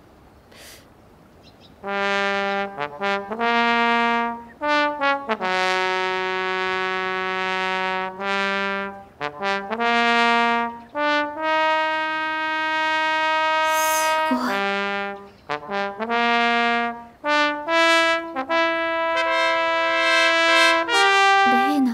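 Trombone playing a slow solo melody of long held notes, starting about two seconds in, one note at a time with short breaks between phrases.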